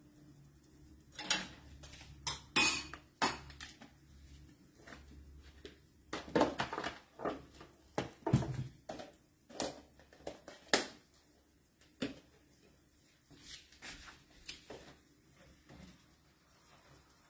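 Kitchen clatter as pans, bowls and utensils are handled at the stove and counter: scattered sharp clinks and knocks, busiest in the first two-thirds and thinning out near the end.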